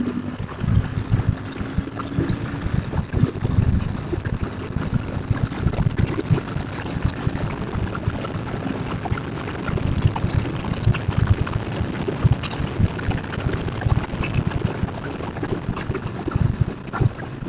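Royal Enfield Continental GT 650's parallel-twin engine running while the bike is ridden at speed, with heavy wind buffeting on the microphone.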